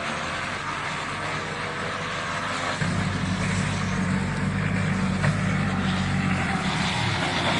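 Engine of a farm machine running steadily; about three seconds in, a deeper, louder engine rumble comes in and holds until near the end.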